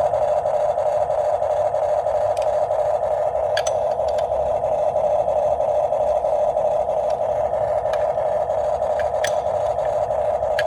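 Huina 1569 RC bulldozer's electric drive running steadily, a continuous whirr with a fast flutter, with scattered sharp clicks and ticks from the moving machine.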